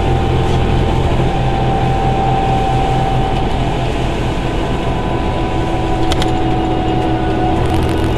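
Bus engine and cooling fan running while the bus drives, heard inside the cabin: a steady rumble under a held whine, which is taken to be the radiator cooling fan. A second, lower whine comes in about five seconds in.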